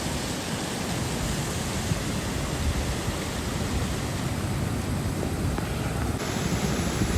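Steady rushing noise with a heavy low rumble, like wind, running water or traffic heard close.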